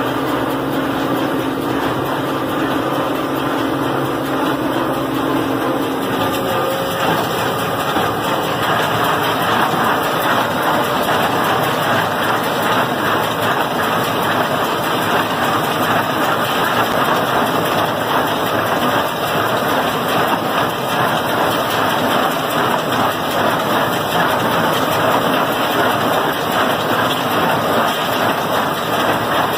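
Tractor engine running with a John Deere small square baler working behind it as it picks up and bales hay: a loud, steady mechanical din. The engine's hum stands out more in the first several seconds, then blends into the noise of the baler.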